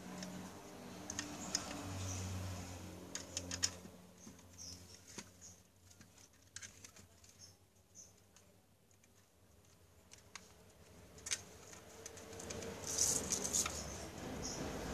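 Small clicks, taps and scratchy rustles of fingers handling the wiring and plastic housing of a disassembled electric fan, in scattered bursts with a quieter stretch in the middle.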